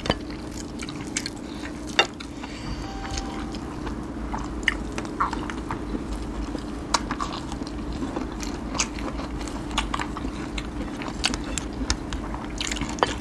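Close-miked eating: people chewing and biting food, with scattered sharp mouth clicks and crunches over a steady low hum.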